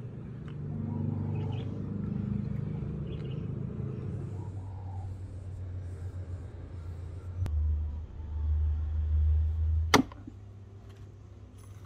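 A Hults axe with a rosewood handle chopping once into a wooden stump near the end: a single sharp thud with a short ring. Before it, a steady low rumble that swells for a couple of seconds just ahead of the strike.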